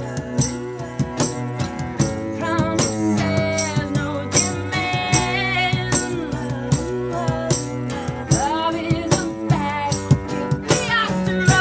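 Live band music: a bowed cello and other pitched parts over hand percussion keeping a steady beat.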